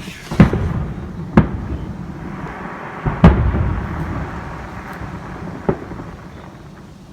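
Fireworks shells bursting overhead: four sharp bangs, the loudest about three seconds in, with rumbling echo and crackle between them that dies away.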